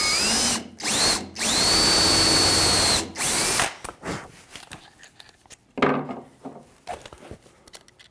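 Cordless drill running in several bursts, its motor whine rising and then holding steady, the longest burst about a second and a half, as a countersink pilot bit bores into the wooden skirt. The drill stops before the halfway mark, leaving only light handling clicks and taps.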